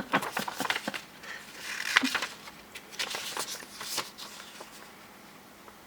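Quiet rustling and clicking handling noises, as of paper being handled, in two clusters in the first four seconds, then fading to room tone.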